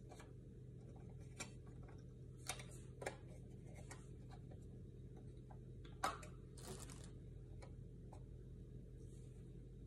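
Faint clicks and taps of a small plastic solar lantern being handled, with a sharper click about six seconds in, over a low steady hum.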